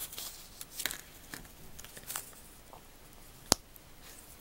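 Small plastic toy parts being handled and fitted together: light rustles and scattered faint clicks, with one sharp click about three and a half seconds in.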